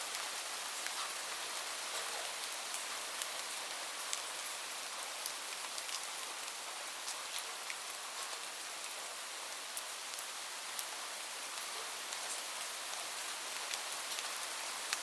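Steady rain falling, a dense even hiss with many distinct drops ticking sharply on a hard surface.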